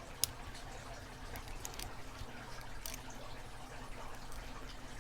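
Faint, scattered small metallic clicks and scratches of a lock pick working the pins inside an Abus 8345 series padlock, held under a tension wrench.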